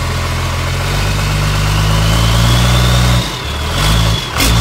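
Dodge Ram 1500 pickup's V8 engine running under throttle as the truck is driven up a car trailer's ramps. The engine note swells, drops off about three seconds in, then surges twice near the end, with a sharp knock just before it ends.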